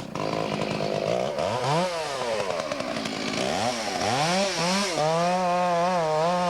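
Faller's chainsaw revved up and down several times, then held steady at high revs, as the faller gets ready to start the face cut on a standing tree.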